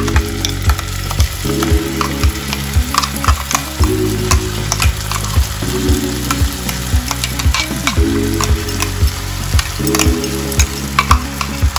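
Oil sizzling in a nonstick wok as a spoon scrapes a thick ground masala paste out of a bowl into the pan. The spoon clicks and knocks against the bowl and pan many times, irregularly. This is the frying of the paste.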